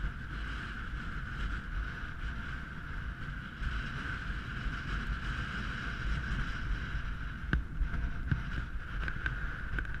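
Wind rushing over an action camera's microphone during a fast ski descent, mixed with the hiss of skis carving snow. It is steady, with a couple of sharp clicks a few seconds before the end.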